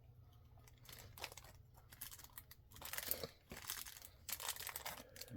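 Plastic packaging crinkling and rustling as it is handled, in irregular bursts, loudest about three seconds in and again near the end.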